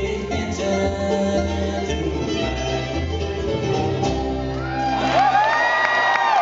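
Bluegrass band of guitar, banjo, mandolin, fiddle and bass playing the last bars of a song, the final chord dying away a little past four seconds in. From about five seconds in, the audience breaks into applause with loud whistling.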